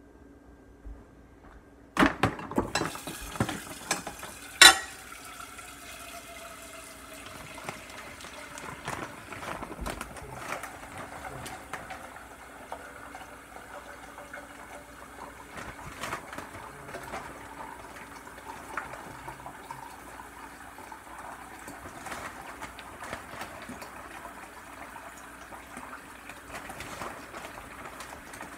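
A metal ladle clanks against a pot and baking dish, with a sharp clank about five seconds in. Then comes a steady wet bubbling and scraping with small clicks as thick sauce is scooped and spread in layers.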